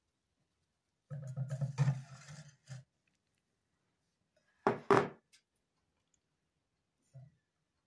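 A low buzzing sound for about a second and a half, then, about five seconds in, two sharp knocks in quick succession.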